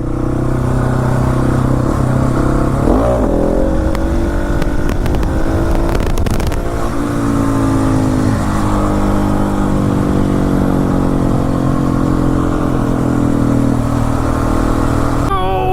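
Husqvarna 701 Supermoto's single-cylinder engine running at a steady cruise, with a brief drop and rise in pitch about three seconds in.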